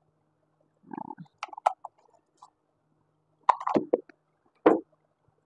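A plastic food container and its snap-on lid being handled: a few scattered clicks and knocks, with two or three slightly louder rattles in the second half.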